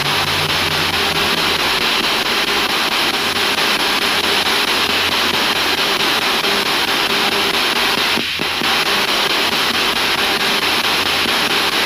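Spirit box sweeping radio channels, played through a JBL speaker: a steady, loud hiss of radio static, with a brief dip about eight seconds in.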